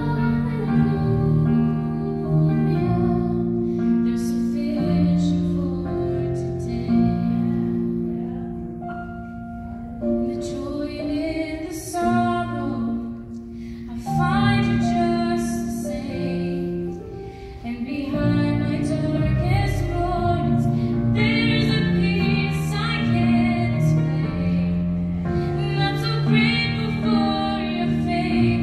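A song playing, with a woman singing over held chords and a bass line.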